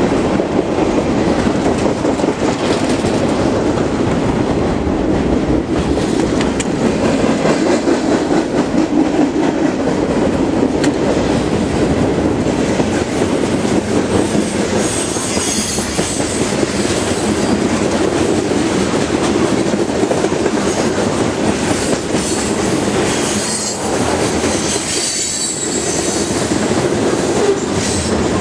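A train rolling past close by: a steady rumble of steel wheels on rail with clickety-clack over the rail joints, and high wheel squeal coming in about halfway through and again near the end.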